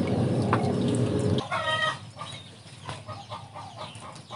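12-volt DC submersible hydroponic pump running, humming and churning the water in a bucket, then cutting off sharply about a second and a half in. Right after, a chicken clucks briefly.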